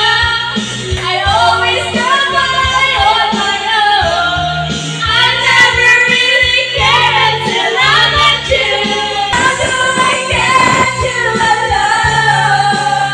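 Several women singing together into karaoke microphones over a karaoke backing track with bass and drums.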